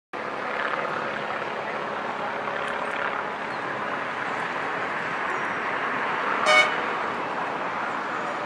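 A tram horn gives one short toot about six and a half seconds in, over a steady background of outdoor street noise.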